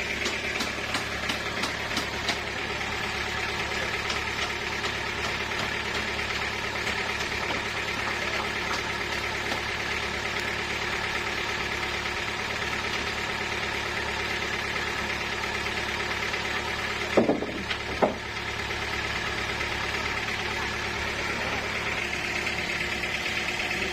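Sawmill machinery running with a steady motor drone. About two-thirds of the way through come two loud knocks less than a second apart.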